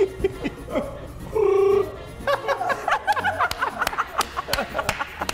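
News anchors laughing over background music, with a run of quick sharp clicks in the second half.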